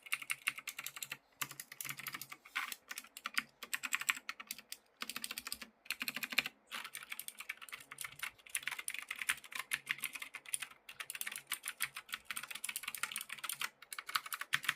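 Fast continuous typing on a Keychron C2 mechanical keyboard with clicky Gateron Blue switches, a rapid stream of sharp clicks broken by a few brief pauses, stopping suddenly at the end.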